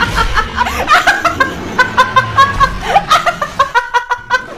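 Laughter in a rapid run of short, high-pitched bursts.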